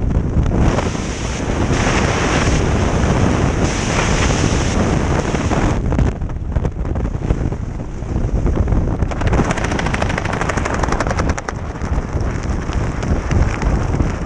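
Wind rushing over a helmet camera's microphone in skydiving freefall, easing about six seconds in as the parachute opens. After that comes rapid fluttering as the canopy fabric flaps in the airflow.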